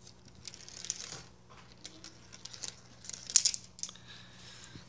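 Sharper Image / Discovery Toys 313-piece plastic marble run in use: marbles clicking and rattling along the plastic track and the hand-turned elevator, in irregular clicks with a louder clatter about three and a half seconds in.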